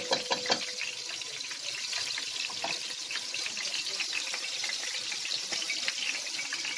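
Steady sizzling and crackling of ghee and oil heating in a pot on the stove.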